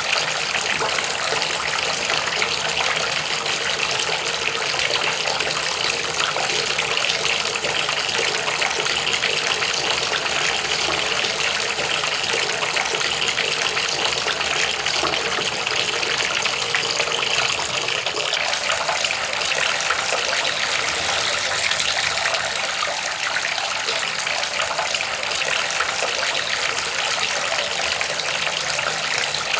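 Water gushing steadily, an unbroken rush.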